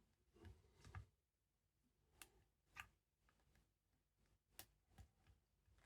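Faint, scattered clicks and ticks of a lock pick and tensioner working the pins of a Chubb pin-tumbler cylinder, with a few soft knocks of handling in the first second.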